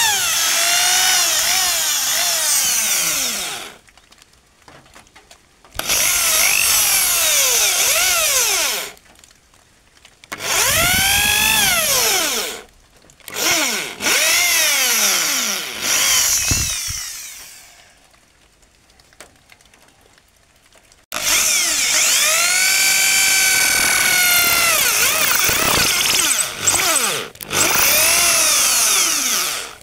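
Maktec electric drill boring a pilot hole into a hardwood beam, run in several bursts with short pauses between them, the motor's pitch rising and falling within each burst. The pilot hole is drilled so the nail can be driven without bending and without splitting the hardwood.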